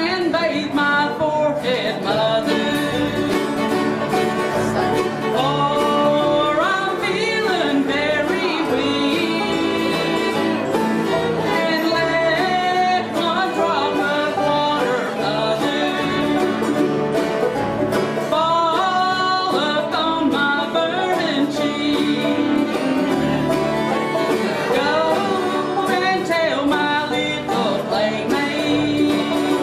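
A woman sings a slow country ballad in bluegrass style, with strummed acoustic guitar and banjo accompaniment.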